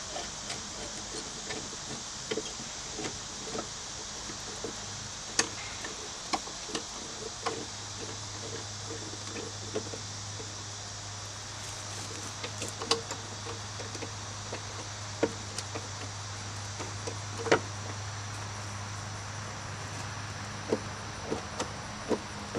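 Scattered light knocks and clicks of hand work on the golf cart, with a few sharper knocks, over a steady low hum and a high hiss.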